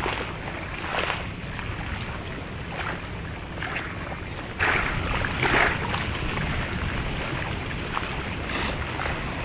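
Wind rumbling on the microphone over lake water, with a few short splashy bursts, the loudest about halfway through.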